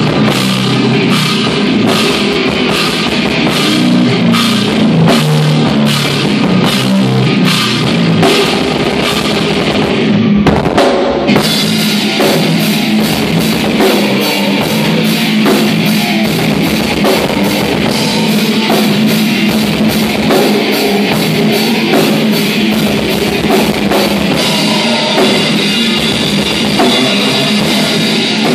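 A heavy metal band playing live and loud: electric guitar and a drum kit pounding out a steady beat. About eleven seconds in, the drums switch to a denser, faster pattern.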